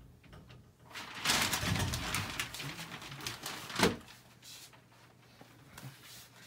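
Reticulated python striking a dangled rabbit and coiling on it: about three seconds of scuffling, rustling and knocking against the enclosure, ending in one sharp thump, the loudest sound.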